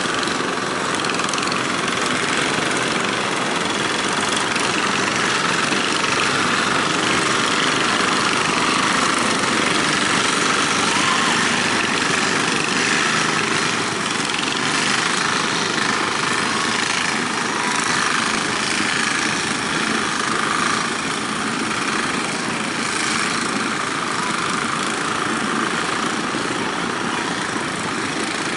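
Steady noise of breaking surf and wind mixed with the running engines of outrigger fishing boats pushing through the waves.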